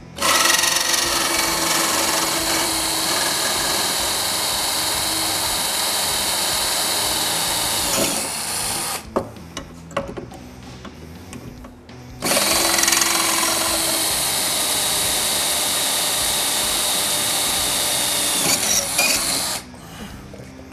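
Power drill running steadily as it bores rivet holes through the aluminum running-board rail, in two long runs of about eight seconds each, with a pause and a few light clicks between them.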